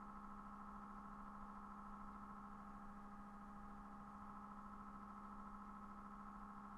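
Faint steady electrical hum with a higher whine beneath it, unchanging throughout: the background noise of the recording setup.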